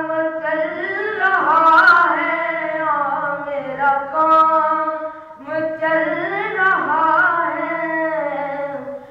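A boy's unbroken voice singing a naat unaccompanied into a microphone: a long, ornamented melodic phrase, a brief breath about five seconds in, then another phrase.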